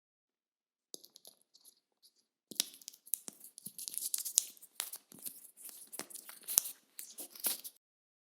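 Crinkling, tearing crackle of many short, sharp clicks. It starts faint and sparse about a second in, turns louder and denser from about two and a half seconds, then stops abruptly near the end.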